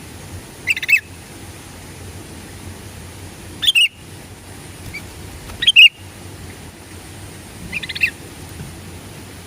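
Sooty-headed bulbul (kutilang) calling: four short phrases of bright notes, spaced about two to three seconds apart, over a faint steady low hum.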